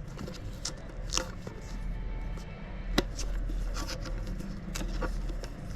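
Handling noise from unboxing a card game: scattered light clicks and rustles of packaging and cards being handled, with one sharper click about three seconds in, over a steady low hum.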